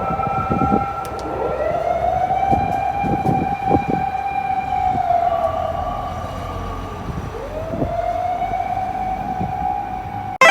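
Fire engine siren wailing in slow cycles, its pitch rising, holding, gliding down and rising again, over low rumbling. A sharp, loud click right at the end.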